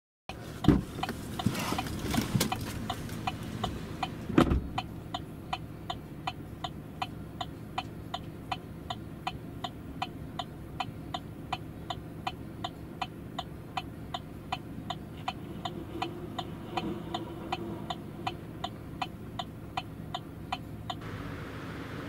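Car's turn-signal/hazard flasher ticking steadily inside a stopped car, about three ticks a second, under a low steady hum; two heavy thumps come before the ticking, about half a second and four seconds in, and the ticking stops shortly before the end.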